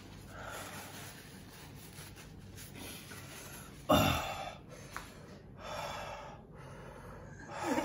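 A man breathing heavily through his mouth, his tongue burning from very spicy Samyang hot chicken noodles, with one sudden loud gasp about four seconds in.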